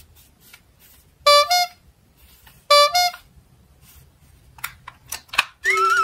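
Two short electronic two-note horn honks, each a low note stepping up to a higher one, about a second and a half apart. Near the end a loud electronic siren starts: a warbling tone that climbs, over a steady tone. Light clicks of plastic toys being handled come between.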